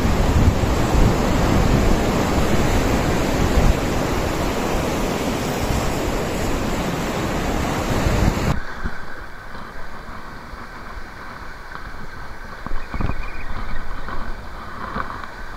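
Sea surf on a rocky shore with strong wind buffeting the microphone. About eight and a half seconds in it cuts off suddenly to a quieter, closer wash of waves over the rocks.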